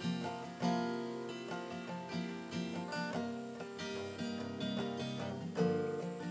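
Acoustic guitar playing an instrumental passage of picked notes and chords, each note ringing and dying away.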